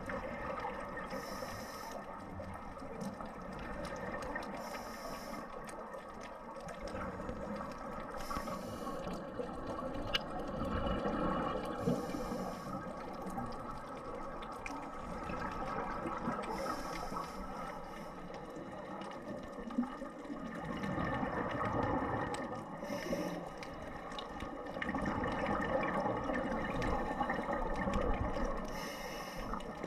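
Scuba diver's regulator breathing heard underwater: a short high hiss every few seconds, with a steady gurgling wash of exhaled bubbles and water in between.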